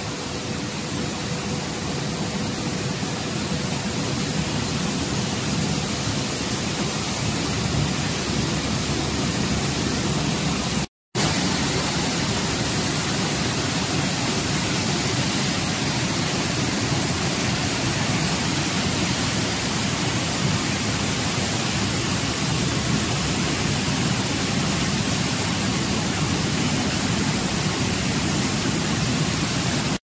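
Air-bubble sweet corn washing machine running: water churning and hissing steadily in its stainless tank, stirred by air bubbles and spray bars, with a faint steady hum in the first several seconds. The sound cuts out for a moment about eleven seconds in.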